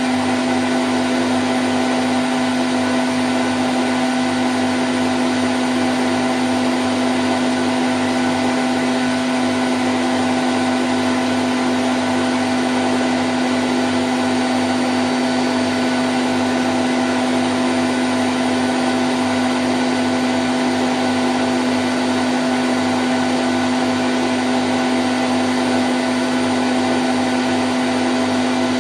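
Candy Grand O' F106 washing machine spinning at 1000 rpm: a steady, unchanging whirring hum with one strong constant tone.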